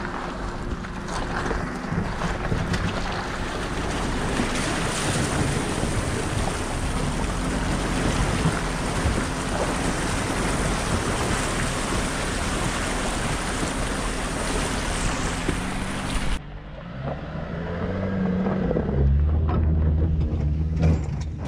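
A four-wheel-drive vehicle driving through a creek crossing: rushing, splashing water over the engine's steady note. About three-quarters of the way through, the water noise cuts off suddenly, and the engine is then heard revving up and down, loudest near the end.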